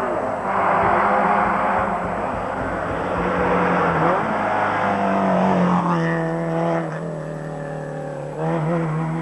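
Rally car engine, a Peugeot 205, revving hard as it drives past at speed, its pitch climbing and dropping with each gear change.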